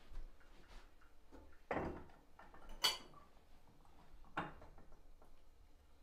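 Glass tea glasses and saucers set down on a wooden table: three separate knocks and clinks, the sharpest a ringing glass clink about three seconds in.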